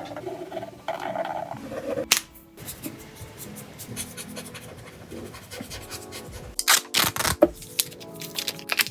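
Paper being handled and unwrapped: scratchy rustling and crinkling, with a sharp click about two seconds in and a burst of loud crisp crinkles about three quarters of the way through.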